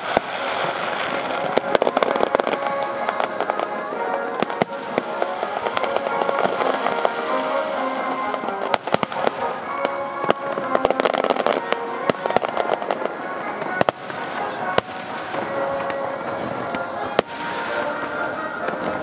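Aerial fireworks shells bursting overhead in an irregular string of sharp bangs, over music.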